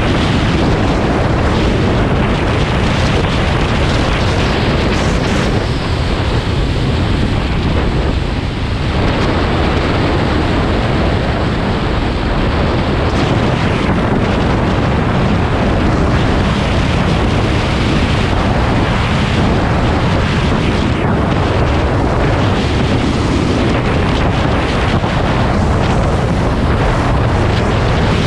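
Steady, loud wind rush buffeting the microphone of a motorcycle on the move, with the bike's running noise underneath.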